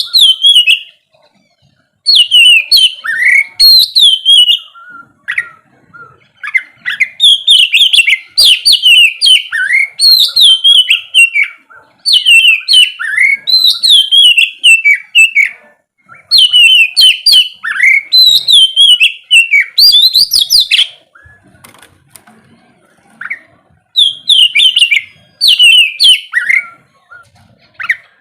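Oriental magpie-robin (kacer) singing loud, varied whistled phrases of quick rising and falling notes, delivered in bursts of a few seconds with short pauses between them.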